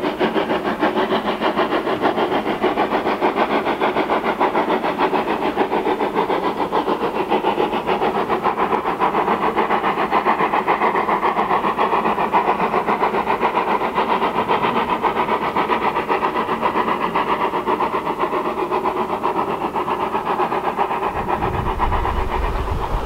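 Railway locomotive running, a steady fast pulsing that keeps an even pace throughout.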